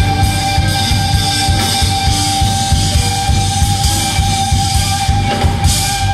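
Live rock band playing with electric guitar and drum kit: a held guitar note over fast, dense drumming.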